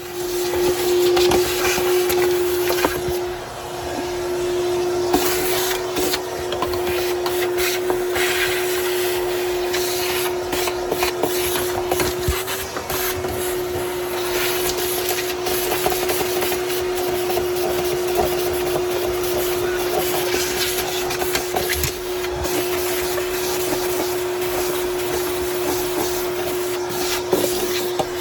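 Shop vac switching on and running steadily, its motor holding one steady hum with a rushing hiss, as it sucks debris off the car's floor, with scattered clicks and rattles of grit and bits going up the hose.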